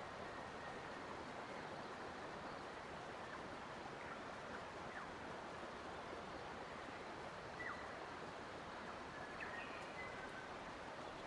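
Steady rush of flowing water, with a few faint, brief bird chirps, most of them about seven to ten seconds in.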